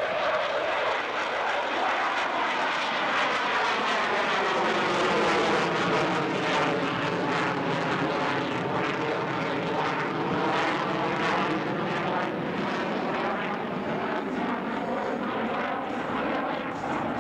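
F/A-18 Super Hornet's twin jet engines running in a slow, gear-down pass, a loud, steady jet noise that sweeps and phases up and down in pitch as the aircraft goes by overhead.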